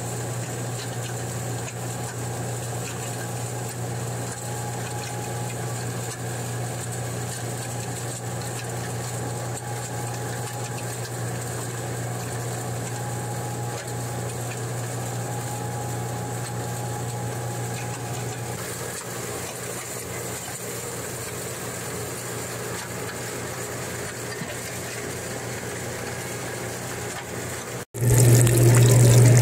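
Steady machine hum of a gold milling plant running, with water washing over a shaker table. Near the end it cuts out for an instant and comes back louder.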